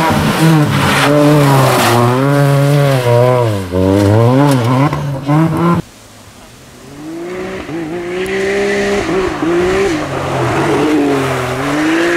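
Suzuki Swift rally car engine at full revs through a bend, its pitch rising and dropping repeatedly with throttle lifts and gear changes. It cuts off abruptly about six seconds in. A quieter off-road buggy engine then comes in and climbs in pitch as it nears.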